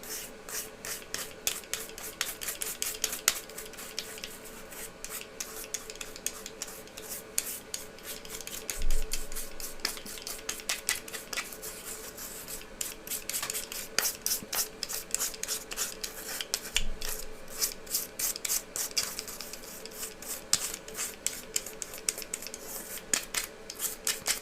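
A small brush scrubbing debris out of a magnetic parts bowl in rapid, repeated strokes that come in clusters.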